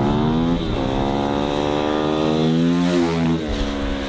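KTM 450 EXC-F's single-cylinder four-stroke engine revving up: its pitch climbs, dips briefly just under a second in, climbs again, then falls away after about three seconds.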